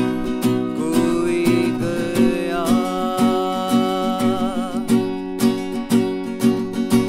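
A song with rhythmic strummed acoustic guitar. A long note wavering with vibrato is held through the middle.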